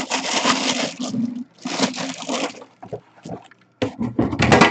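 Plastic bag around a football helmet crinkling and its cardboard box scraping as they are handled: two long rustles, then a run of quick crackles near the end.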